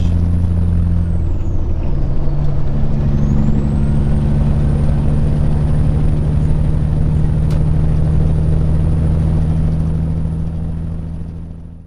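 Peterbilt 379 semi-truck's diesel engine running steadily under way, heard from inside the cab; its pitch steps up about two seconds in, and the sound fades out near the end.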